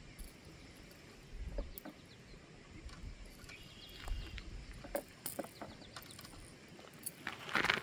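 Outdoor creekside ambience: scattered light clicks and knocks, a bird chirping a few quick notes about three and a half seconds in, and a brief rushing noise just before the end.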